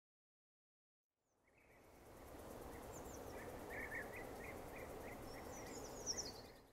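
Outdoor ambience fading in after about a second of silence: a steady, faint noisy background with small birds chirping in short repeated calls, fading out near the end.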